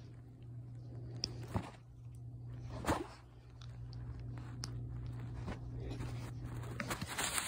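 Faint handling noise: scattered soft clicks and rustles over a low steady hum, the clearest click about three seconds in.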